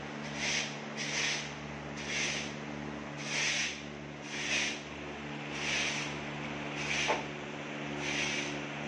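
Rhythmic scraping, a stroke about once a second, as a wooden profile template is pushed along wet gypsum plaster to run a cornice moulding. A steady low hum runs underneath.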